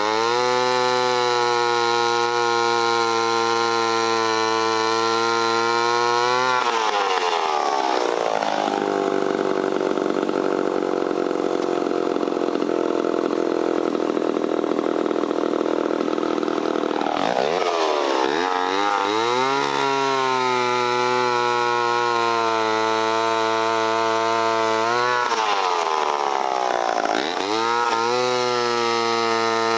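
Homelite C-7 vintage two-stroke chainsaw running at high revs. For about ten seconds in the middle its pitch drops and holds lower as it pulls through a cut into a log, then it revs back up, with another brief dip a few seconds before the end.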